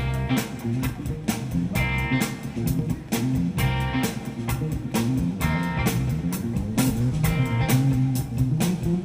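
Rock band playing: guitar and bass over a steady drum beat.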